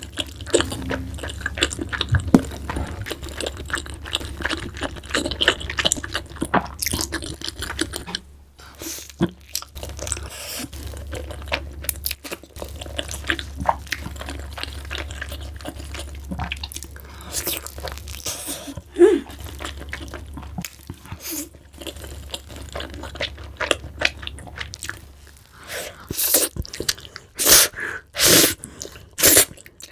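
Close-miked eating of pizza and mac and cheese: irregular wet chewing, smacking and crunching bites, with a run of louder crunchy bites near the end. A steady low hum lies underneath.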